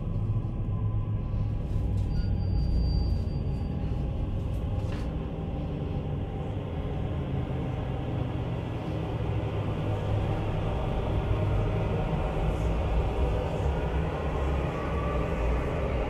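Deep, steady rumbling drone with a hissing layer above it: the dark ambient sound design of a film scene.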